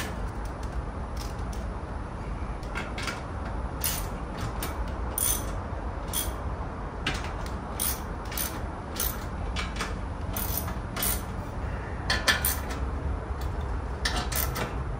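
Irregular metal clicks and clanks from handling and fastening a steel battery wall bracket on Unistrut channel, over a steady low rumble.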